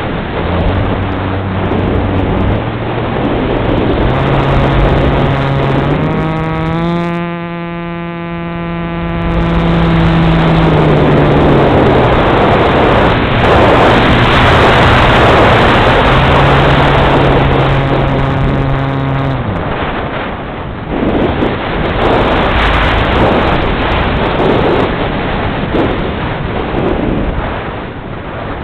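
Wind rushing over a wing-mounted camera on a delta-wing RC plane in flight, with the plane's pusher propeller motor droning along. The motor's steady pitched hum comes through clearly about a quarter of the way in and again past the middle.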